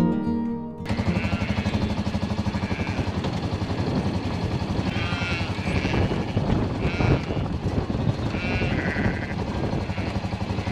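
A slow-moving farm vehicle's engine running with a fast, even pulse, while merino sheep and lambs bleat several times across the mob as it is mustered through long grass.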